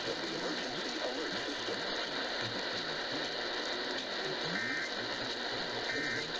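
Steady radio receiver hiss with faint, muffled broadcast audio underneath. From about 4.5 seconds in come two short bursts of a two-tone digital warble, about a second and a half apart, the pattern of the Emergency Alert System's end-of-message data bursts.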